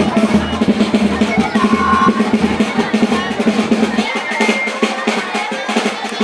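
Tuk band drumming: bass drum and snare beating a fast, driving rhythm, with a couple of brief high notes over it. The deep bass drum drops out about four seconds in.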